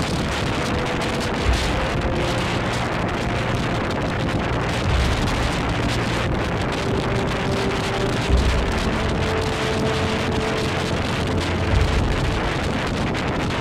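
Strong wind buffeting the microphone: a steady rush with low, gusty rumbling and a few stronger gusts.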